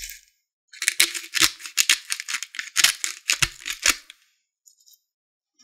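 Salt grains sprinkled by hand onto sliced raw fish on a ceramic plate: a dense run of small rattling ticks, starting about a second in and lasting about three seconds.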